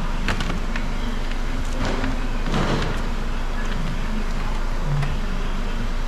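A few light clicks and rustles from hands working inside an opened car door, over a steady low hum of workshop background noise.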